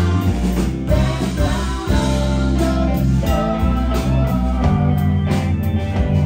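Live rock band playing: electric guitar over bass guitar and drums, loud and continuous.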